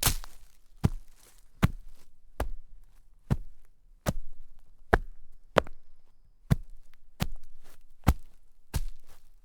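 Footsteps walking at a steady pace in shallow snow, about one step every 0.8 seconds, each step a short crunch that fades quickly.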